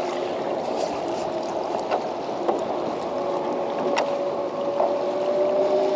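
Water sloshing around a kayak and a landing net lifted from the water, with a few sharp clicks and knocks of gear. About halfway in, a steady hum joins, rising slightly in pitch.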